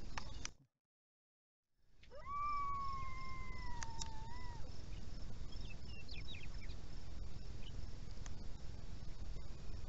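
The sound drops out for about a second near the start. Then a coyote gives one long howl that swoops up, holds steady and bends down at its end, followed a couple of seconds later by a few short high yips, over a steady low rumble.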